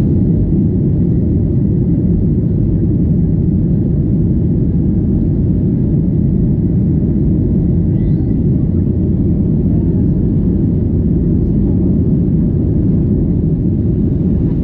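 Steady low roar inside the cabin of a Boeing 737-800: its CFM56 jet engines and the airflow around the fuselage, even and unchanging.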